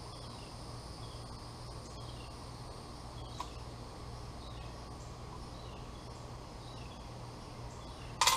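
Insects droning steadily with faint repeated chirps, over a low steady hum; one light click about three and a half seconds in.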